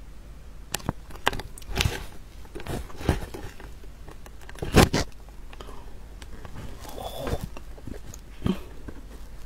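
Durian being handled and eaten close to the microphone: a string of sharp clicks, crackles and tearing noises at irregular intervals, the loudest a double snap about halfway through.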